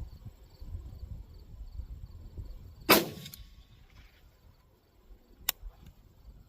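A 1949 Winchester Model 94 lever-action .30-30 rifle fired once about three seconds in: a single sharp crack with a short echo. A sharp click follows about two and a half seconds later, over faint chirping crickets.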